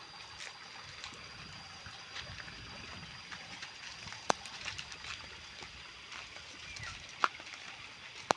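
Faint water trickling at a fish pond, with a steady high-pitched tone, a few soft clicks, and two sharp clicks about four and seven seconds in.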